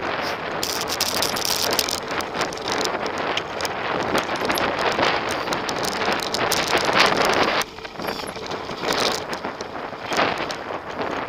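Wind buffeting the camera microphone over the crunch of a Cube LTD Race mountain bike's tyres on a loose, stony dirt trail at downhill speed, with constant clatter and knocks from the bike over the bumps. It goes briefly quieter about two-thirds of the way through.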